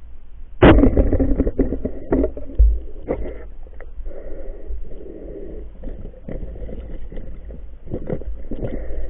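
Muffled underwater sound of a speargun and camera knocking and scraping among submerged roots and branches. A sudden loud knock comes under a second in and is followed by a busy second or two of clatter, then scattered knocks and muffled water noise.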